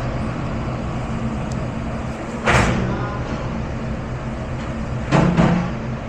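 Steady hum of commercial dish-room machinery, with a loud clatter of dishware or racks about two and a half seconds in and two quick knocks just after five seconds.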